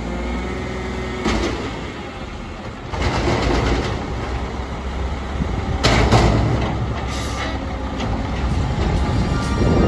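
Diesel engine of a Mack MR front-loader garbage truck with a McNeilus Atlantic body running. It gets louder about three seconds in, and there is a sudden sharp sound about six seconds in.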